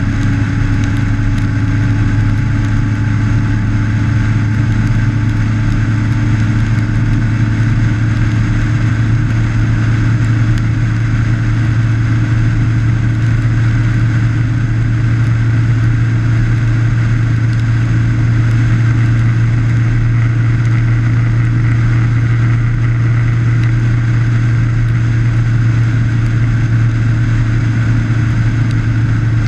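Motorcycle engine running steadily at cruising speed, with wind and tyre noise on a wet road, heard from a camera mounted on the bike's fairing.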